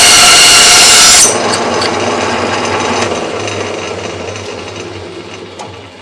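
Bandsaw running loudly with a steady whine, switched off about a second in; the motor and blade wheels wind down, fading to a low hum.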